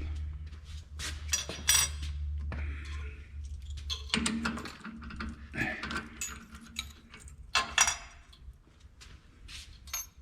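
Metal tools and parts clinking and clattering as they are handled on a workbench, a dozen or so sharp ringing clinks at uneven intervals, over a steady low hum.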